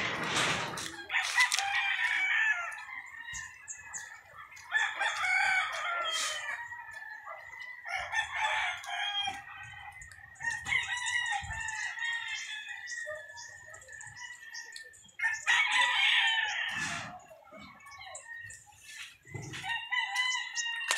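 Roosters crowing, about six crows spread out, each lasting a second or two.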